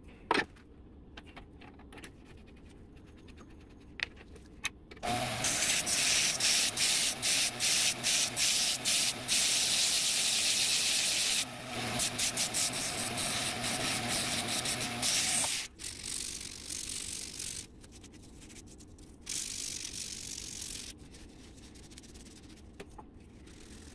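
Wood lathe spinning a foam-backed sanding disc in a drill chuck, with the end of a turned cherry box pressed against it: a steady sanding hiss over a motor whine. It starts about five seconds in, breaks off briefly a few times, and stops suddenly near the sixteen-second mark. After that there is quieter, patchy rubbing of a cloth on the wood.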